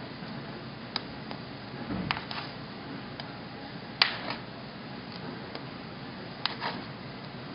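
Metal bench scraper chopping through soft dough and tapping down onto a stone countertop through parchment paper: scattered sharp clicks, the loudest about four seconds in, over a steady hiss.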